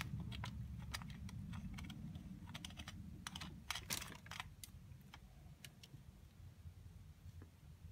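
Light, irregular clicks and taps of the take-down knife's metal guard and fittings as they are handled and adjusted on the blade, with a quick cluster of clicks about halfway through and only a few after that, over a low steady hum.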